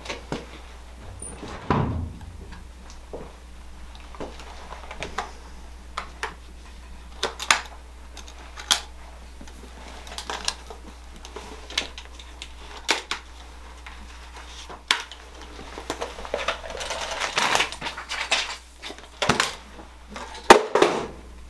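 Scattered sharp clicks and knocks, about a dozen spread irregularly, the loudest a little before the end, over a steady low hum: a metal briefcase being carried and handled.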